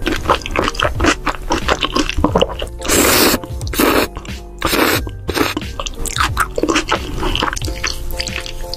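Close, wet slurping and sipping of creamy pasta sauce from a spoon: many short slurps and two longer ones in the middle, over steady background music.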